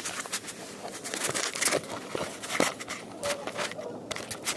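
Footsteps crunching on thin snow and icy grit: an irregular run of short, crisp crackles. A few faint waterfowl calls sound in the background.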